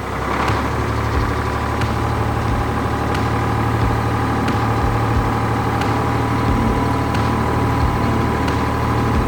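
A vehicle engine running steadily at an even idle-like pitch, as a cartoon sound effect.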